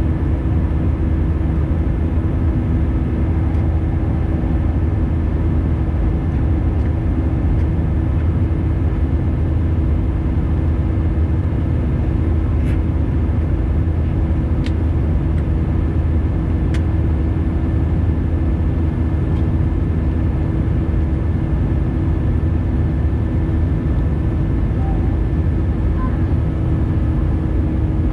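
Airbus A320neo's turbofan engines running steadily: a continuous low rumble with a steady hum over it.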